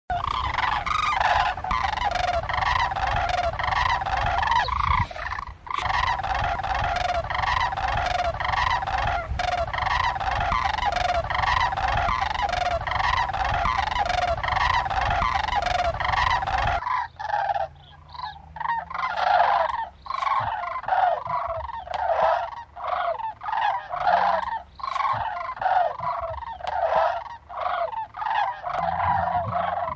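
A flock of sandhill cranes calling, many overlapping calls repeating over and over. About 17 seconds in, the low rumble beneath them stops and the calls become fewer and more separate.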